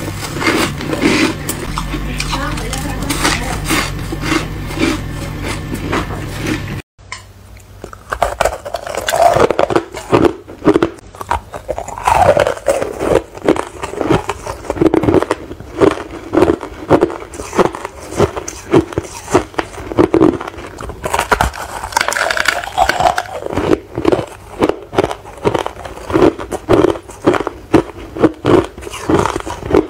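Ice and freezer frost being bitten and chewed close to the mouth: crisp crunches, several per second. A steady low hum lies under the first few seconds; after a sudden break about seven seconds in, the crunching is denser and louder.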